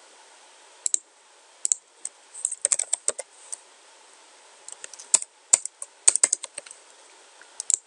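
Typing on a computer keyboard: two single key clicks, then quick runs of keystrokes.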